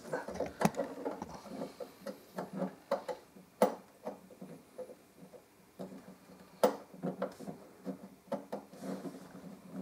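Small plastic clicks and taps of a barcode scanner's cable plug being pushed and fumbled into the COM port on the side of a Casio SE-S400 cash register, with two sharper clicks, one a little over a third of the way in and one about two-thirds in.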